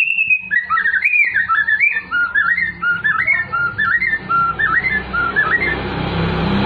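White-rumped shama singing: a long held whistle, then a quick run of short, clear, rising-and-falling whistled phrases, about two a second. A steady hiss grows louder under it near the end.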